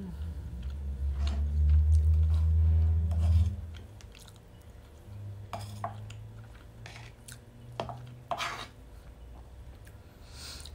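Mukbang eating sounds: a metal fork clinking and scraping in a wooden bowl of anchovies and potatoes, with chewing. A loud, low steady hum fills the first three and a half seconds. Short scrapes and clicks follow, clustered near the middle and toward the end.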